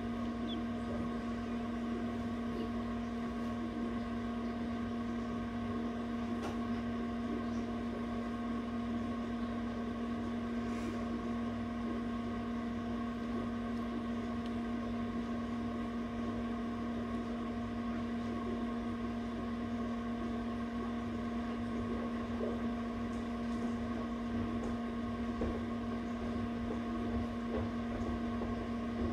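Steady electric hum of an egg incubator running, with one strong low tone and several fainter higher tones above it.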